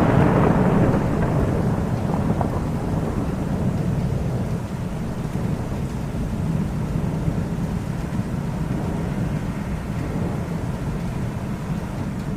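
Thunder rolling: one long, deep rumble that is loudest at the start and slowly fades, dying away near the end.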